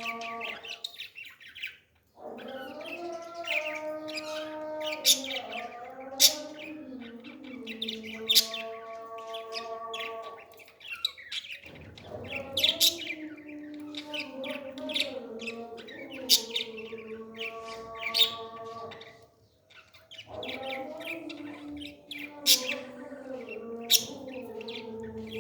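Birds chirping in short sharp calls, again and again, over a steady humming tone that shifts slowly in pitch and cuts out twice.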